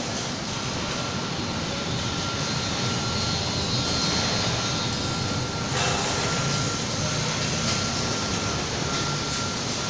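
Steady outdoor roar of city traffic, with a faint high whine running through it.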